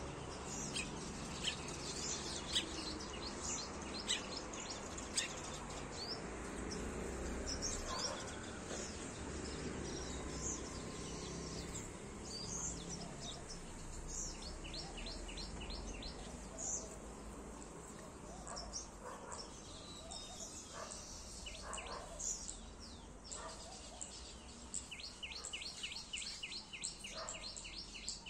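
Small songbirds chirping and calling over a steady background hum, with fast runs of evenly repeated notes about halfway through and again near the end.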